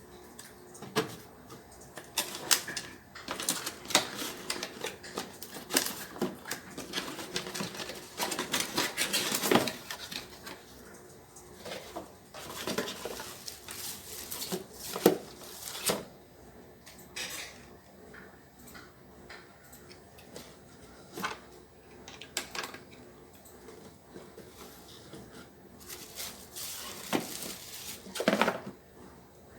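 Irregular clattering, clicking and knocking of hard objects being handled, busiest in the first half and again near the end.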